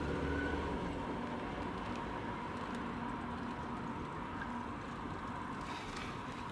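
Steady road and engine noise heard from inside a moving car: an even rumble and hiss with a faint steady tone.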